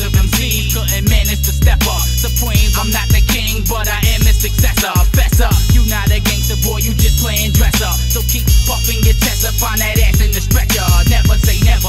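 Hip hop track: a heavy bass beat with a man rapping over it. The bass drops out briefly a little before the middle.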